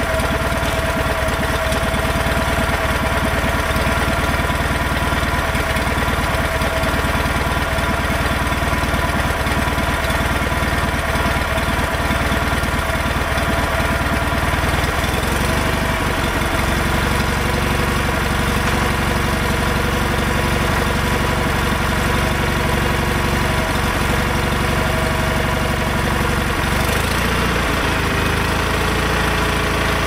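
A John Deere 318's two-cylinder Onan engine running steadily, its note changing about halfway through as the engine speed shifts. It is running fine now that the ignition has spark again.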